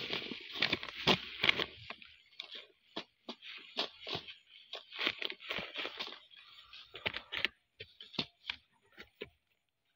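Dry grass mulch and a sack rustling and crackling as a hand pushes into them: a rapid, irregular run of crackles and scrapes, thickest in the first couple of seconds and thinning out toward the end.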